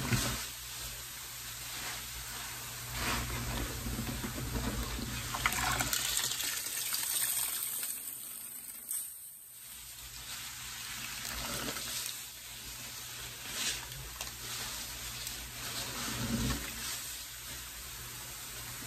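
Sponge being squeezed and dipped in a bucket of sudsy pine-cleaner water: water trickling and splashing back into the bucket, with a brief lull about halfway through.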